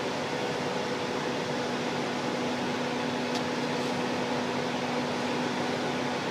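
Steady machine hum over a constant hiss, even throughout with no change in pitch.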